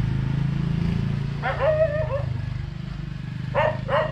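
A dog barking: one drawn-out bark about a second and a half in, then a quick run of short barks near the end. Under it, a low engine hum fades away.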